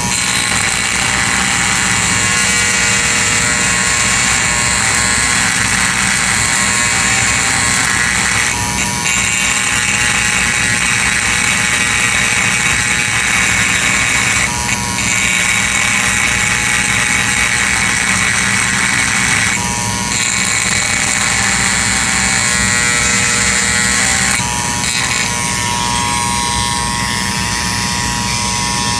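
Handheld rotary tool running steadily as it engraves a thin metal headband plate, with a short dip in the sound every five seconds or so.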